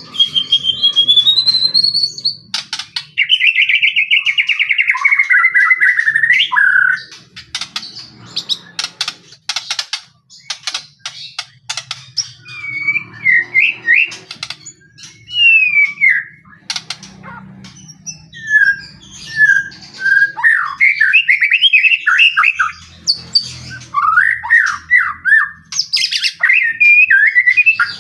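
White-rumped shama (murai batu) singing a loud, varied song: a rising whistle, a long trill that falls in pitch, a run of sharp clicking notes, then series of quick rising notes.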